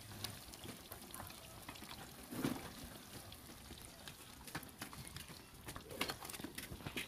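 Pieces of fish deep-frying in a large pot of hot oil: a faint, steady sizzle full of small crackles.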